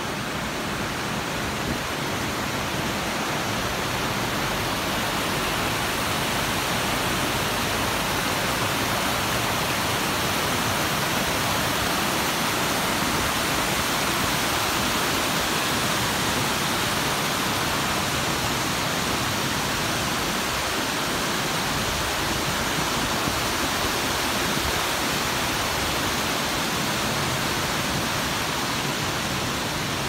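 Waterfall and mountain stream rushing over rocks: a steady, even roar of falling and splashing water.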